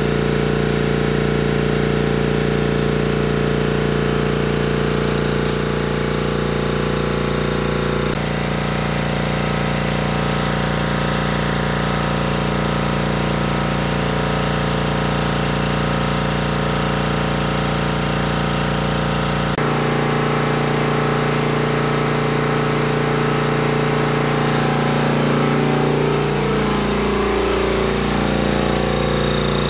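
Tanabe H-74 two-stage reciprocating marine air compressor running steadily under load, with both stage pressure gauges up, a loud continuous mechanical pounding hum. Its tone shifts abruptly about 8 and 20 seconds in.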